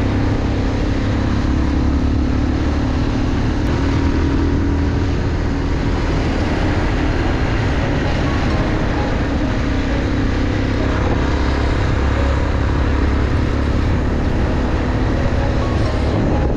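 Motorcycle engine running steadily at cruising speed, with road and wind noise.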